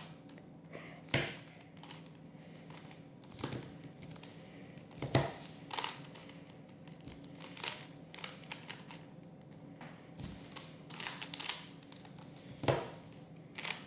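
Rubik's cube layers being turned by hand: irregular plastic clicks and clacks as the faces are twisted one after another, with light rustling of the cube in the hands.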